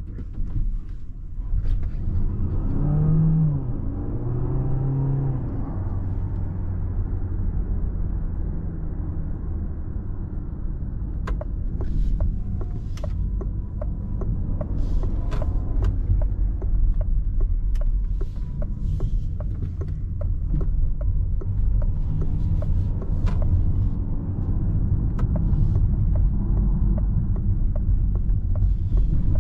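Cabin sound of a Citroen C5 X plug-in hybrid driving slowly in town: a steady low road and tyre rumble, with a short wavering tone a few seconds in and scattered sharp ticks through the second half.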